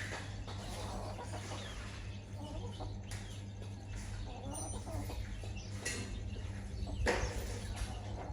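Chickens clucking as they feed, over a steady low hum, with one louder short burst about seven seconds in.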